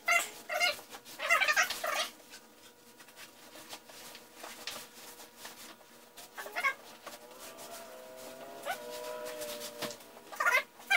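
A cat meowing several times, with one long drawn-out call about eight seconds in, over faint clicks and rustling.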